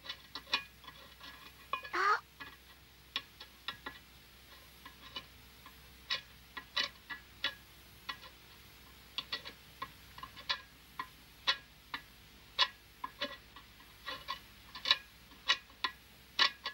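Sparse, irregular sharp clicks and crackles, a few a second at most. One brief rising tone comes about two seconds in.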